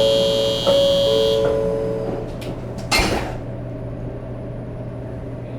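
Shinkansen 500 series at a station stop, heard from inside the car: a steady high-pitched platform departure buzzer cuts off about a second and a half in, overlapping a two-tone chime that steps down in pitch. About three seconds in comes a short loud hiss and thump as the doors shut, then the low steady hum of the train standing ready to leave.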